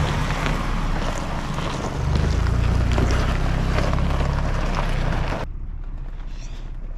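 2021 Ford Bronco Badlands driving over a rocky, gravelly trail, with a heavy low rumble and wind buffeting the microphone. About five and a half seconds in, the sound cuts suddenly to a quieter, steady hum from inside the cab.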